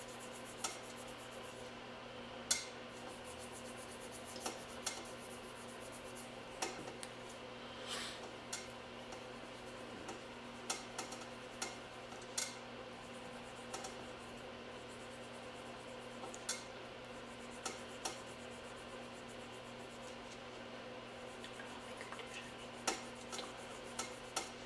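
Light, irregular clicks and taps of small manicure tools working on fingernails, over a steady low hum.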